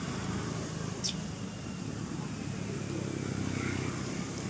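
Steady low outdoor background rumble, with one brief high chirp about a second in.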